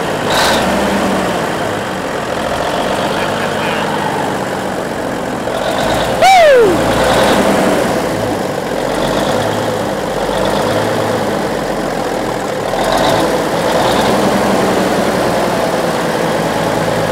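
Diesel engine of a 1950s Euclid off-road dump truck idling steadily, running after sitting for more than ten years. About six seconds in, a brief loud squeal falls in pitch.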